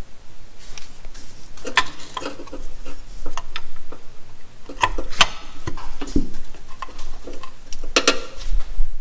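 Scattered metallic clicks and light knocks as a new water pump is handled and seated onto its locating dowels on a Honda 3.5 L V6 engine block. The sharpest clicks come a little after five seconds in and again about eight seconds in.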